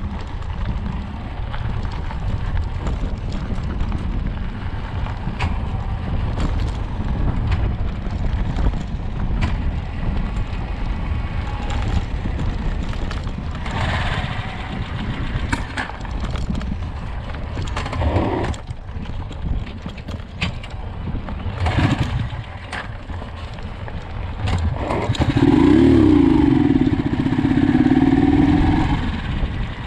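Vehicle engine running with a steady low rumble of wind on the microphone and scattered knocks; near the end a louder engine note wavers up and down for a few seconds.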